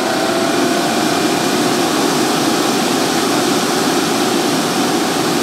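ChallengAir Double K 560 dog dryer's blower running steadily: a strong rush of air with a steady motor whine, its pitch levelling off in the first second as the fan reaches full speed. The dryer is running properly with its new timer switch.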